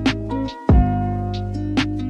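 Background music: a hip hop instrumental beat with a deep kick drum, sustained bass and keys, and a sharp snare hit about a second in.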